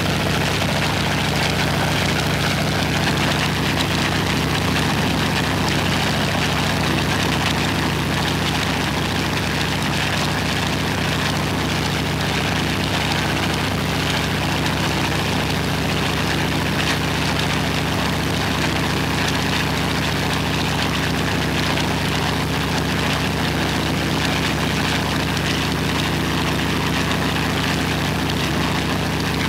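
Ilyushin Il-14T's Shvetsov ASh-82T fourteen-cylinder radial piston engine running steadily on the ground with its propeller turning, during an engine run-up.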